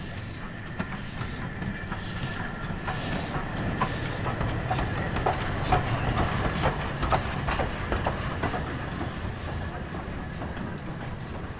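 BR Standard Class 4 2-6-0 steam locomotive 76079 rolling slowly past with a low rumble and its wheels clicking over the rail joints, loudest about halfway through as it passes close by.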